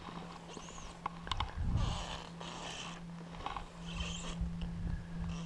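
Fly reel's click-and-pawl drag ratcheting in several short bursts, with a faint low steady hum underneath.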